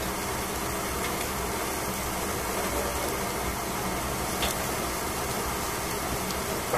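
Steady hiss of vegetables steaming and sizzling in a covered pan, with a faint click about four and a half seconds in.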